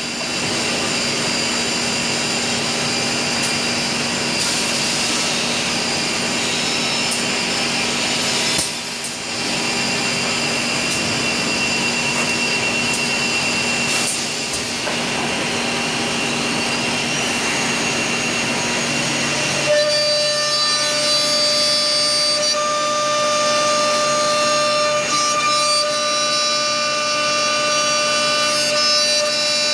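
Holztek high-speed six-sided CNC drilling machine running as it machines a wood panel: spindle whine over the steady rush of its dust extraction. About twenty seconds in, the set of whining tones changes, with two brief dips before that.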